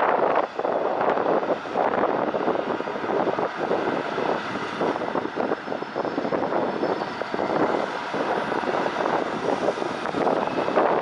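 Steady drone of a heavy lorry's diesel engine as the truck drives slowly off a car ferry onto the quay.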